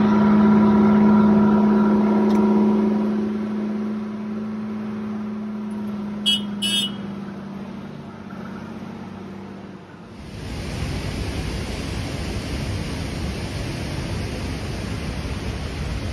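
Engine of an open-sided tour truck running at a steady hum on a gravel road, fading off after about three seconds; two short high chirps a little past halfway. Near the end the sound changes abruptly to a steady rushing of wind on the microphone.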